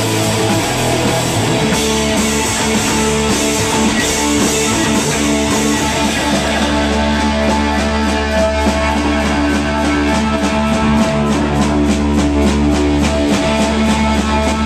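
Live rock band playing loudly: electric guitar and bass guitar holding sustained chords over a drum kit. From about halfway in, the drums keep up a rapid, even beat of roughly four strikes a second.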